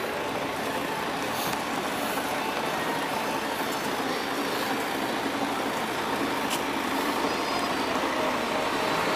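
City street traffic noise: a steady wash of passing buses and cars, with two brief sharp clicks, one early and one past the middle.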